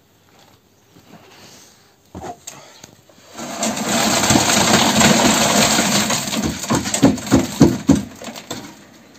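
Wet concrete mix poured from a metal bucket into wooden formwork: a loud, gritty rush of the mix sliding out for about five seconds, with a few sharp knocks near the end as the upturned bucket is banged to shake the rest out. A single knock comes a couple of seconds before the pour.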